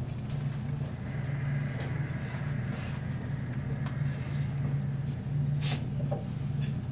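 A person breathing out through a handheld spirometer's mouthpiece, a faint breathy hiss, over a steady low hum; a brief sharp sound near the end.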